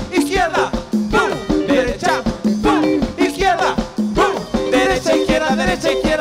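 Cumbia band music with a steady dance beat and a gliding melody line.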